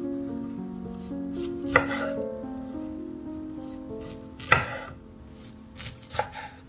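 Chef's knife cutting through broccoli florets onto a wooden cutting board: several sharp chops, the loudest about two seconds and four and a half seconds in, with a few lighter ones near the end, over soft background music.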